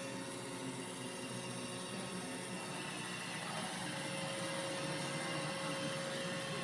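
iRobot Roomba j7+ robot vacuum running: a steady whir of motor and brushes with a thin constant whine.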